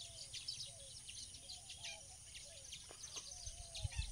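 Faint outdoor ambience of many small birds chirping in short, scattered calls over a steady high hiss, with a soft low bump near the end.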